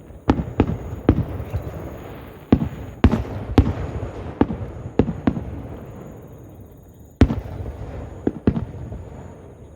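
Aerial firework shells bursting: about a dozen sharp bangs, each followed by a rolling echo. The loudest come about three and a half and seven seconds in, and the bangs thin out near the end.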